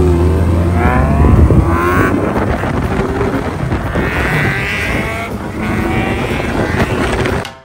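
Yamaha XJ's inline-four engine revving hard through a WRP Ikazuchi aftermarket exhaust, the exhaust note climbing and dropping repeatedly. It cuts off suddenly near the end.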